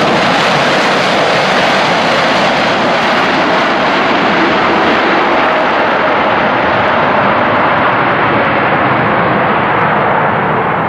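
Jet engines of a Boeing 787-8, Rolls-Royce Trent 1000 turbofans, making a loud, steady roar; its high hiss slowly thins toward the end.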